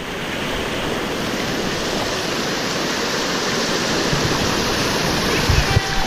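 Waterfall water rushing and splashing over rocks in a steady, loud hiss, with a couple of brief low thumps near the end.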